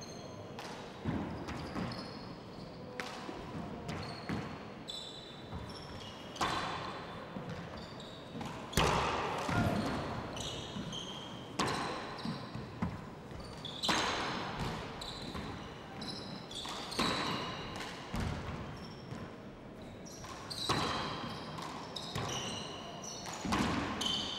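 Handball rally: a small rubber handball smacking off the players' hands and the court walls every second or two, with sneakers squeaking on the hardwood floor between the hits.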